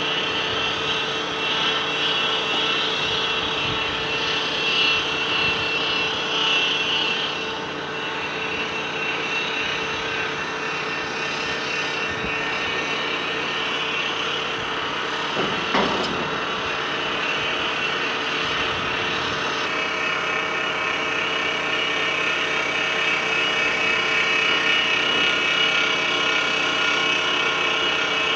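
Heavy diesel earthmoving machinery running steadily, with a high whine that eases about a third of the way in and comes back about two-thirds of the way in. A single sharp clank sounds about halfway through.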